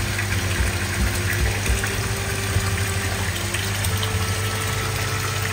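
Koi pond water churning and bubbling under a steady low machine hum, typical of a pond pump and aeration.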